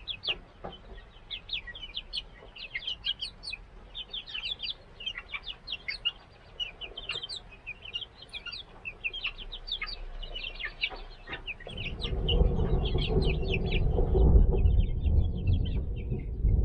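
A flock of month-old chicks peeping, with many short, high cheeps overlapping. About twelve seconds in, a loud low rumble comes in and the peeping thins out.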